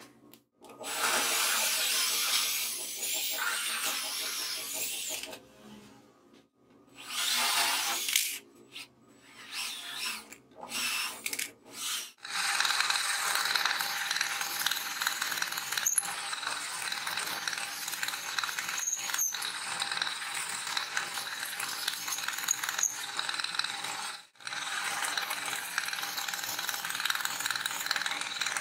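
Bench drill press boring holes with a twist bit through laminate-faced plywood, in several short passes with gaps between them, then a longer steady stretch of drilling with brief pauses.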